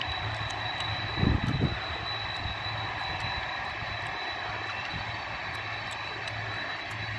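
Boeing 747-400 freighter's four jet engines running at low taxi power as the jet turns onto the runway: a steady rushing noise with a thin high whine and a low hum. Two brief low thumps about a second in.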